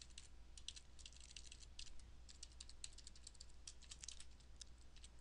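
Faint typing on a computer keyboard: quick, irregular runs of keystrokes with short pauses between them.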